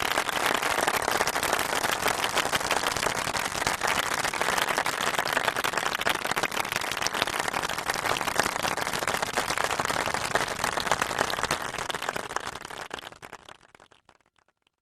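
Crowd applause: a steady, dense patter of many hands clapping that fades out near the end.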